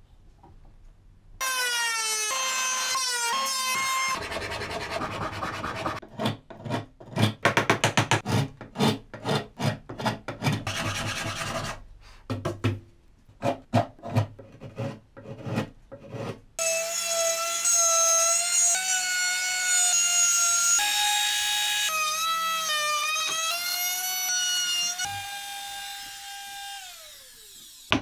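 Hand tools working a clamped wooden block: a small handsaw cutting in quick rhythmic strokes, and long stretches of high, squealing scraping whose pitch wavers and steps about, sliding down near the end as the chisel pares the wood.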